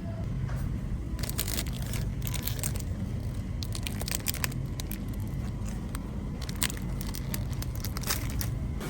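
Irregular crinkling and clicking handling noises, like packaging or bags being handled, over a steady low hum.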